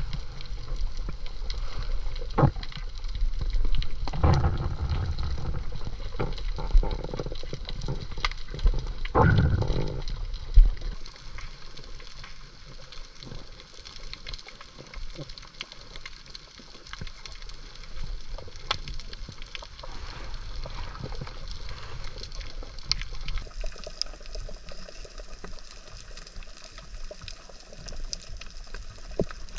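Sea water sloshing and splashing, with two louder swells of splashing in the first ten seconds, then a quieter, steady wash of water.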